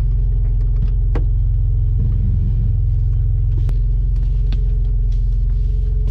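Off-road 4x4's engine idling steadily with the vehicle standing still, a deep even rumble heard from inside the cab, with a few light clicks over it.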